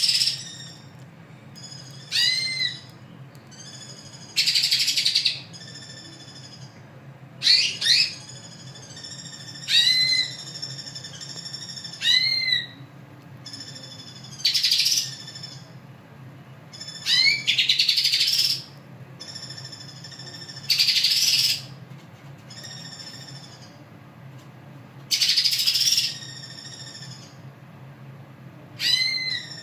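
Cucak ijo (green leafbird) singing loudly in repeated phrases about every two to three seconds, mixing short rising whistled notes with harsh, raspy bursts.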